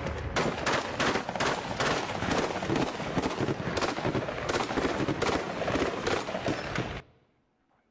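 Heavy automatic gunfire, many shots close together in uneven bursts, from an armed clash between security forces and tribal gunmen; it cuts off suddenly about seven seconds in.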